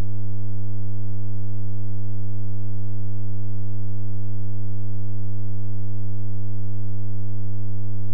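A steady, low, buzzy electronic tone held at one unchanging pitch, the kind of synthesized broadcast tone used in mock emergency-alert sequences.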